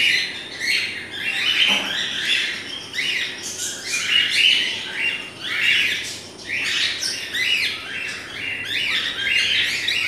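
A flock of caged cockatiels calling, short chirping calls repeated one after another and overlapping, about one or two a second.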